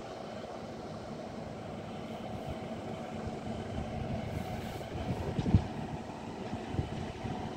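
Class 153 diesel multiple unit's underfloor engine running at low revs, a steady low rumble. A single sharp thump comes about five and a half seconds in.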